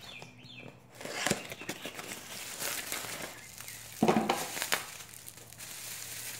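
Plastic wrapping crinkling and rustling as the new camshaft is handled out of its packaging, with a sharp click about a second in and a louder rustle around four seconds in.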